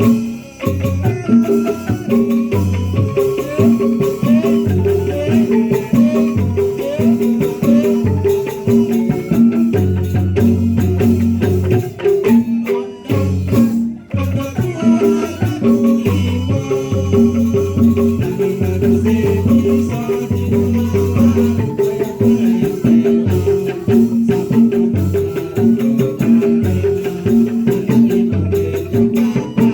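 Instrumental percussion music: struck, pitched mallet instruments play a repeating pattern over a steady low drum-like pulse, with rattles or shakers.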